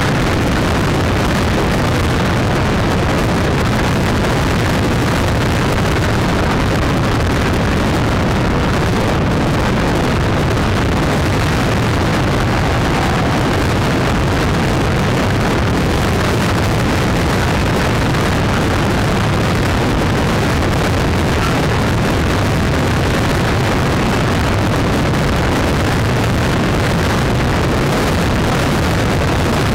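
Steady rush of wind on the microphone mixed with engine and road noise from travelling at motorway speed among a group of motorcycles.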